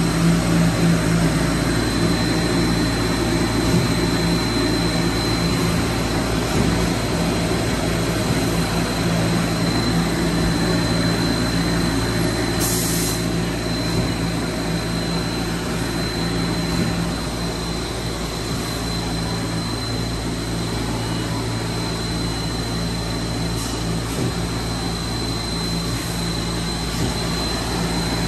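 Haas ST-25 CNC lathe running: a steady mechanical hum with a thin, steady high-pitched whine over it. A brief hiss comes about thirteen seconds in.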